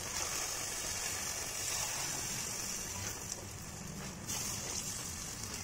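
Water poured from a glass into a hot pot of oil-sautéed rice, a steady splashing pour that eases off after about three seconds.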